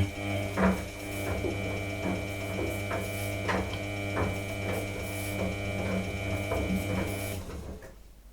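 Samsung Eco Bubble washing machine running: a steady electric hum with a high whine over it and regular clicks about twice a second. It stops suddenly about seven seconds in.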